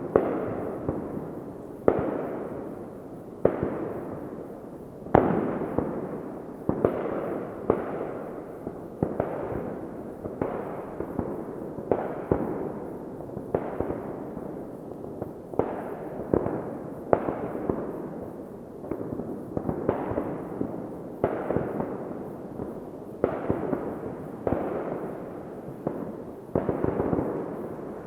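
Fireworks going off one after another, a sharp bang every second or two, each trailing off in a rolling echo that overlaps the next.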